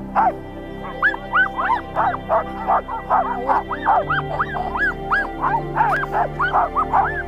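Alaskan husky sled dogs in a stopped team yipping and barking over and over, several short high calls a second, each rising and falling in pitch. Soft background music with long held notes plays underneath.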